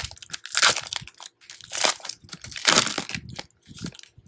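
Plastic wrapper of a trading-card pack crinkling and tearing as it is ripped open, in several loud bursts.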